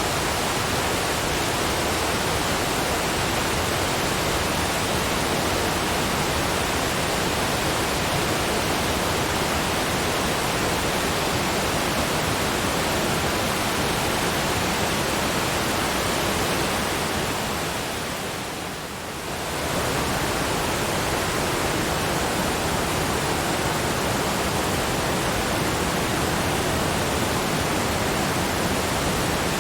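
Waterfall white noise: an even, steady rush of falling water. It fades down briefly about eighteen seconds in, then comes straight back, like the seam of a looped recording.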